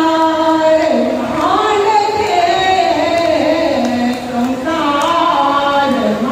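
A woman singing solo into a handheld microphone, holding long notes that slide from one pitch to the next.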